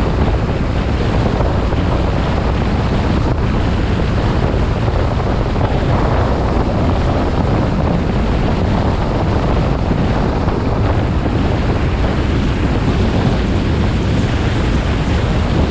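Steady, loud wind rush buffeting an outside-mounted camera's microphone while the pickup drives at road speed, mixed with tyre and road noise.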